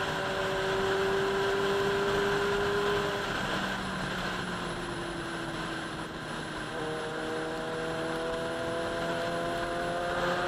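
Inline-four sport motorcycle engine running at road speed: its pitch holds steady, drops a little about three seconds in, then climbs slowly through the second half. Wind rush runs under it.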